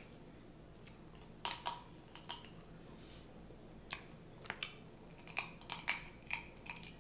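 Snow crab leg shells being cracked and picked apart by hand, a series of sharp, crisp snaps. A few come about one and a half to two seconds in, then a quicker cluster over the last two seconds.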